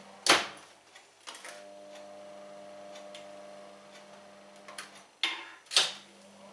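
Built-in microwave oven: the door shuts with a click, then the oven runs with a steady hum for about three and a half seconds and stops. Two loud clicks follow near the end as the door is opened.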